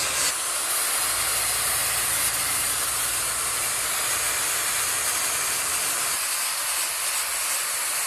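Angle grinder with an abrasive sanding disc running steadily against cured epoxy resin on a PVC-sleeved metal tiller, grinding the excess resin off: an even, steady grinding noise.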